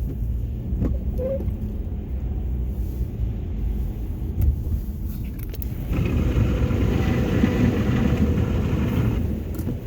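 Tire road noise heard inside a moving car on Cooper Road Control Touring all-season tires: a steady low hum and rumble that gets louder and rougher about six seconds in. The owner blames the tires for the hum, since it stayed after a tire swap and a wheel bearing replacement.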